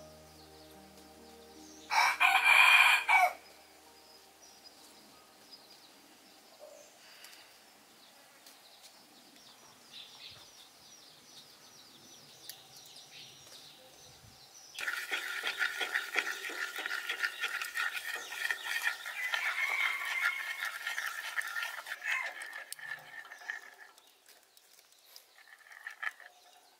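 A rooster crows once, loudly, about two seconds in. From about fifteen seconds in there is a steadier noise lasting about nine seconds.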